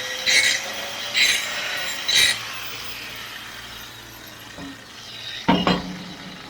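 A power tool's motor winding down after being switched off, its pitch slowly falling, with three short scraping strokes on metal in the first two seconds. A knock follows about five and a half seconds in.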